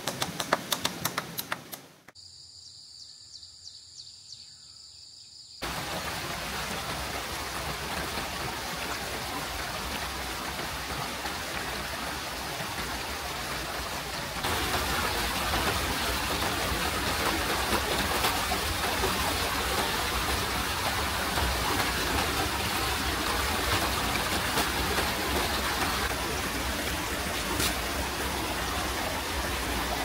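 Heavy rain pouring steadily, a dense hiss that cuts in suddenly about five seconds in and gets louder about halfway through. Before it, the opening seconds hold rapid taps, then a short stretch of quiet high-pitched calls.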